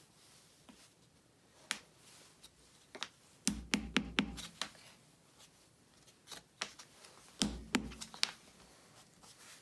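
Sharp clicks and taps of a small hand tool against the wooden rosette of a guitar top, chipping out dried wood glue. The clicks are scattered, with two quick clusters, the first about three and a half seconds in and the second near the end, each with a few low knocks.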